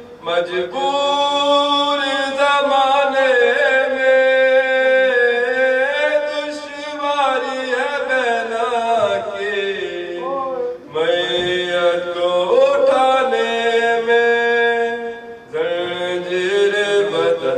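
A single male voice chants a Muharram lament unaccompanied, in long held, wavering notes. The phrases break briefly for breath about half a second, eleven seconds and fifteen and a half seconds in.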